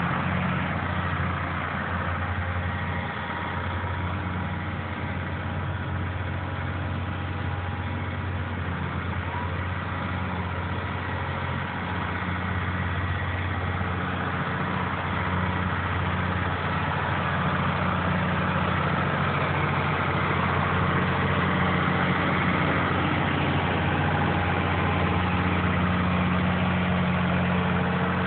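John Deere 2840 tractor's turbocharged six-cylinder diesel running steadily as the tractor drives slowly, getting a little louder in the second half.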